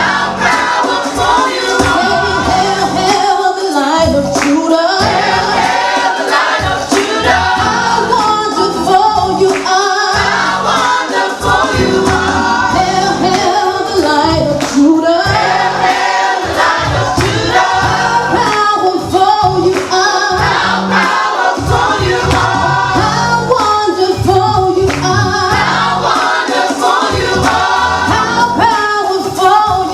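Gospel choir singing with instrumental backing: a repeated bass line and a steady beat underneath the voices.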